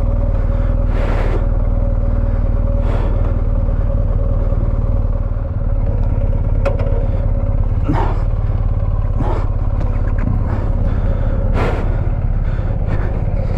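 BMW R 1250 GS Rallye's boxer-twin engine running steadily at low speed while the bike is ridden slowly over rough grass, with scattered short knocks.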